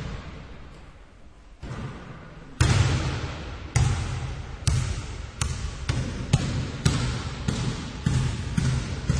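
A basketball dribbled by one person, each bounce a sharp slap on a hard floor with a short echo. After a pause of about a second and a half, a soft bounce, then steady dribbling about twice a second, quickening slightly toward the end.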